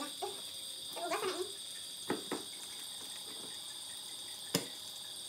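A few sharp clicks and taps of food and utensils being handled at a tabletop electric grill, the loudest near the end, over a steady high-pitched trill in the background.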